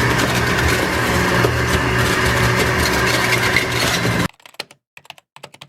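Loud, steady machine-like running noise with a low hum, cutting off suddenly about four seconds in; faint scattered clicks follow.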